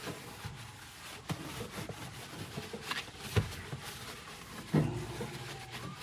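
Paper towel wiping and rubbing the plastic lining inside a refrigerator, with soft rustling and a few light knocks, the sharpest about three and a half seconds in.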